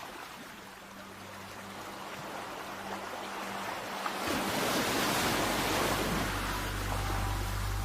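Sea waves washing in, with one wave surging and breaking about four to six seconds in, over a low steady hum that grows louder from about five seconds in.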